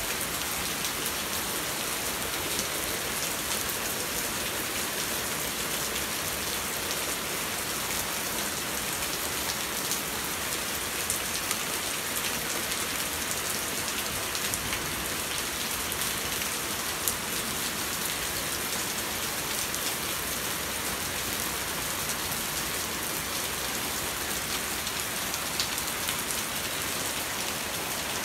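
Heavy rain and hail falling in a steady hiss, with scattered sharp ticks.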